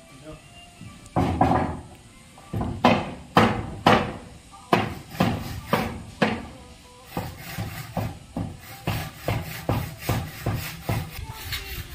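Hard wooden knocks as timber planks are handled and struck, then a handsaw cutting a wooden plank with quick regular strokes, about three a second, through the second half.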